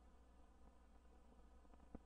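Near silence: the faint low hum and hiss of an old film soundtrack, with one small click near the end.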